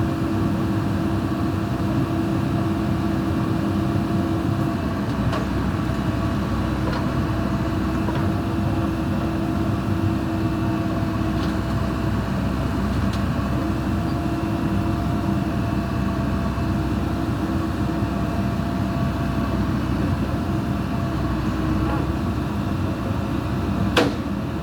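A diesel engine running at a steady speed, with a single sharp click near the end.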